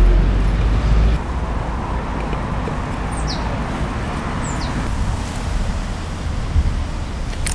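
Steady rushing outdoor background noise, with a low rumble in the first second and a bird giving two short falling whistles, about three and four and a half seconds in.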